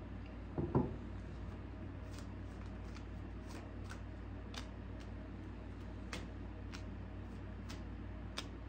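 Tarot deck being shuffled overhand by hand: a string of short, soft card clicks, about two a second, as small packets of cards drop onto the deck. A low thump sounds about a second in.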